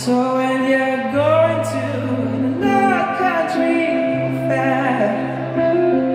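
Live song: singing over electric guitar and keyboard, the voice coming in sharply at the start and gliding between long held notes over steady low chords.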